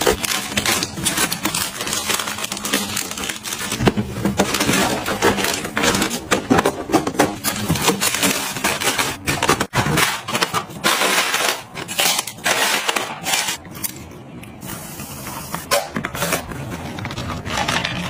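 Crinkling and rustling of plastic-wrapped frozen food being packed into a refrigerator's pull-out plastic freezer drawer, with many small knocks and clicks as items are set in. Around the middle a drawer slides shut, and the handling then grows quieter.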